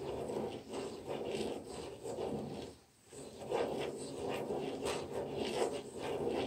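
Ballpoint pen scratching on paper while a small plastic spirograph gear is rolled round the toothed ring of a plastic gear ruler. The scratching stops briefly about three seconds in, then resumes.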